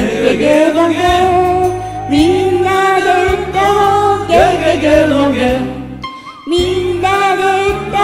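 Karaoke singing: a voice singing into a microphone over a recorded backing track with a steady beat. The music drops away briefly about six seconds in, then picks up again.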